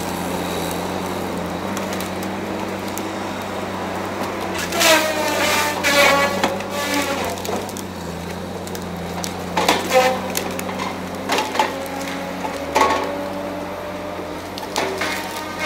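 Tigercat 870C tracked feller buncher's diesel engine running steadily while its felling head cuts and handles pine trees. Several times the wood creaks and cracks, with falling squeals and snaps as trunks and branches bend and break.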